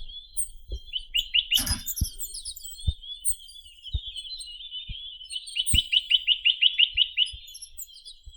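Chinese nuthatch singing: high twittering broken by rapid runs of repeated downward-sweeping notes, a short run about a second in and a longer trill of about ten notes past the middle.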